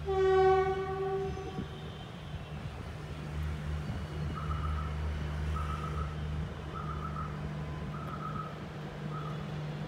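Horn of a WAP-1 electric locomotive sounding one long blast of about a second and a half, heard from a distance, over a low steady hum.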